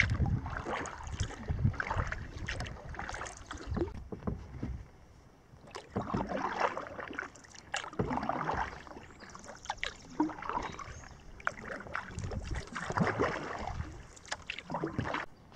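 Kayak paddling: water splashing and dripping off the paddle blades in a rhythm of strokes every second or two, with sharp little clicks and drips between strokes.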